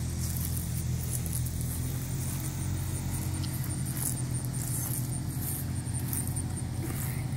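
Ford F-250 Super Duty pickup's engine idling, a steady low hum.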